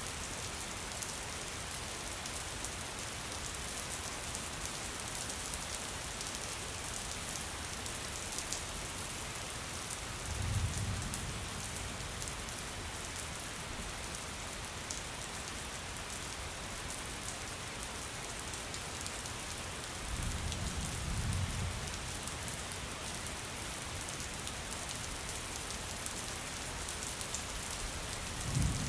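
Steady rain falling, with fine patter of drops throughout. Low rolls of thunder swell up about a third of the way in, again two-thirds through, and once more near the end.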